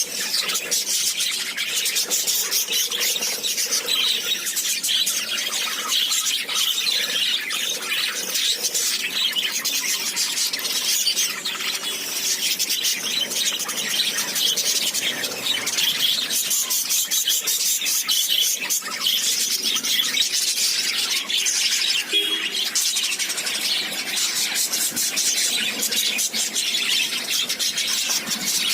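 A group of small pet parrots chattering and squeaking all at once, a dense, continuous, high-pitched twittering with no pause.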